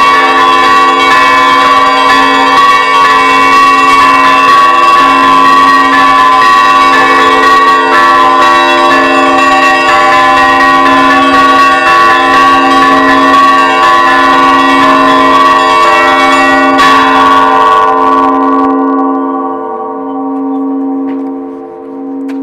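Russian Orthodox church bells ringing a loud festive Easter peal, many bells struck together over a steadily repeating low bell. About 17 seconds in the smaller bells stop and their ringing fades, leaving only the low bell sounding.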